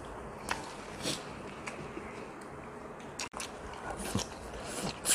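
Close-miked eating: a person chewing and smacking on mouthfuls of rice and stew, with scattered short clicks that come more often in the last second or so.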